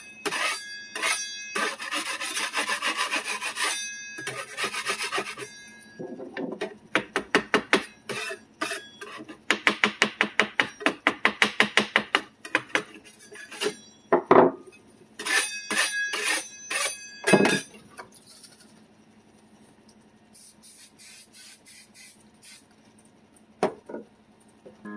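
Hand scraping and rubbing on the surface of a 3D printer's heated print bed to clean it: groups of quick back-and-forth scraping strokes, fastest around ten to twelve seconds in at about six strokes a second, dying down after about eighteen seconds.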